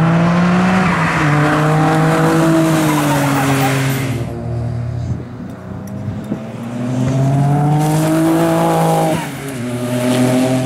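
Noble M12 race car's twin-turbo V6 running hard: the engine note climbs, drops abruptly about a second in, then falls away for a few seconds with a few sharp cracks while the car slows for a corner. It climbs again from about seven seconds, drops sharply once more after about nine seconds and pulls again.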